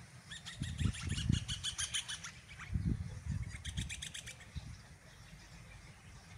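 Birds calling in rapid runs of high chirps: a run of about two seconds, then a shorter burst about three and a half seconds in. Dull low thumps on the microphone sound under the first part.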